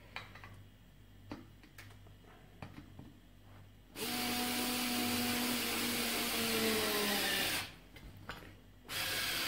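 Parkside PAS 4 B3 4-volt cordless screwdriver running while driving a screw into a wooden board, its whine slowly dropping in pitch as it works. It runs for about three and a half seconds, stops, and starts again near the end. Before it come a few light clicks of handling the screw and board.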